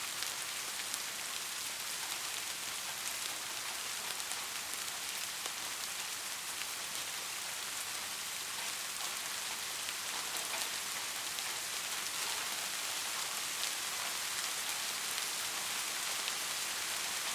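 Steady rain falling, an even hiss with scattered sharper drop ticks. No thunder is heard.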